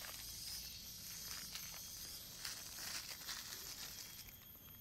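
Used plastic sachets and wrappers crinkling in a hand as they are picked up off the ground: a run of irregular crackles.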